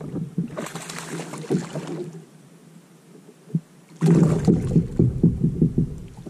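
Water sounds and knocks around a fishing kayak: scattered splashes and bumps, a short lull, then a louder run of knocks and splashing from about four seconds in.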